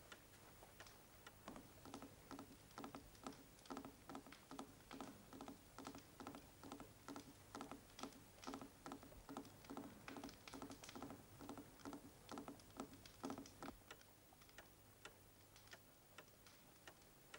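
Clock ticking steadily and faintly, about two ticks a second, growing fainter about fourteen seconds in.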